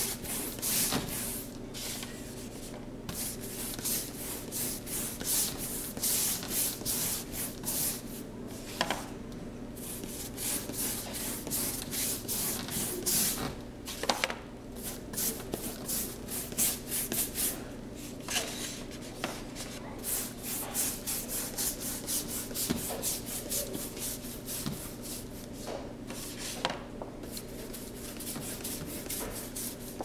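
A wide flat paintbrush scrubbing wet paint back and forth across a large board: a rapid run of scratchy swishing strokes with brief pauses between bursts.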